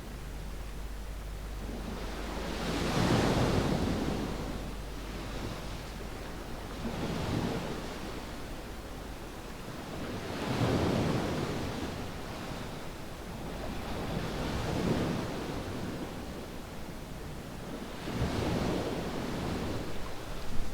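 Surf washing up on a sandy beach, the sound of each wave swelling and ebbing about every four seconds, five times.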